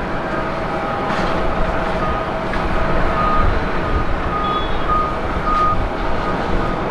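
Steady jet-engine rumble of aircraft on an airport runway and apron, with a held mid-pitched tone running under it. A short high beep repeats at regular intervals, like a ground vehicle's reversing alarm.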